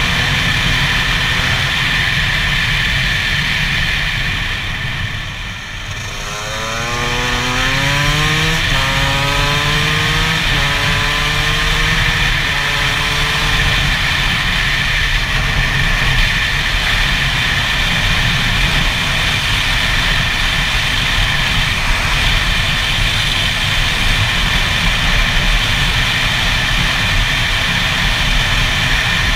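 Gas Gas EC 125's single-cylinder two-stroke engine under way, heard over wind noise on a helmet-mounted camera. It eases off about five seconds in, then accelerates through several gears, each one a rising engine pitch that drops back at the shift, and settles to a steady cruise.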